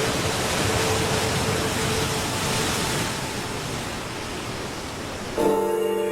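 A steady rushing noise that eases off slightly. An ambient music chord comes in suddenly near the end.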